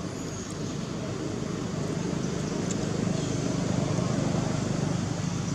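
Steady low rumble of outdoor background noise that grows a little louder about two seconds in.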